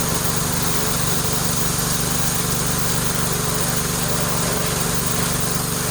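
Pressure washer (water blaster) running steadily with the jet spraying: a motor hum under a constant spray hiss.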